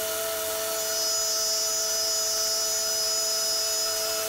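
CNC milling machine's spindle and end mill cutting a metal workpiece under flood coolant: a steady whine. A higher whine joins about a second in.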